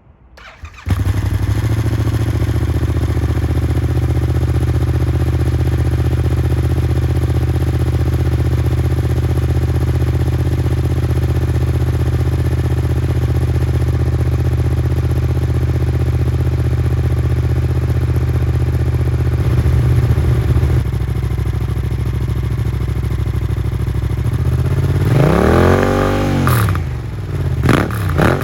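Yamaha MT-07's 689 cc parallel-twin engine through a Mivv Delta Race exhaust, starting about a second in and idling steadily, then revved up and back down a few times near the end.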